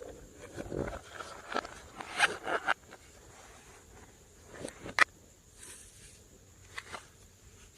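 Slime being mixed by hand: irregular sticky clicks and crackles, busiest in the first three seconds, with a sharp click about five seconds in.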